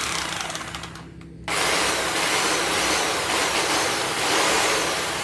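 Bosch three-mode rotary hammer drill running in chisel mode, motor and hammer mechanism going together. It winds down in the first second and a half, is triggered again about a second and a half in, and runs steadily until it starts to wind down near the end. It is working properly after its worn carbon brushes were replaced and it was cleaned.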